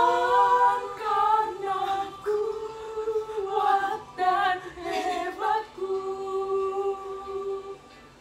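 Girls' voices singing together unaccompanied, a cappella, ending on one long held note near the end.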